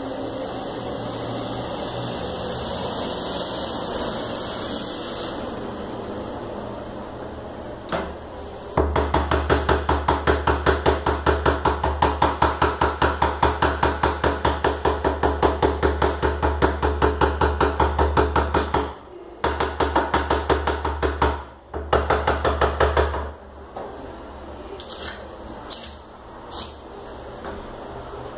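Dental laboratory plaster vibrator running with a strong low hum and a fast, even rattle as a rubber bowl of freshly mixed plaster is held on it to shake out air bubbles. It starts about nine seconds in, cuts off about ten seconds later, then runs again in two short bursts. A steady hiss fills the first five seconds.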